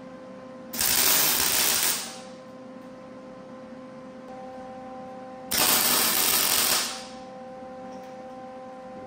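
Two tack welds from a gas-shielded wire (MIG) welder, each a loud crackling hiss lasting about a second and a half: the first about a second in, the second about five and a half seconds in.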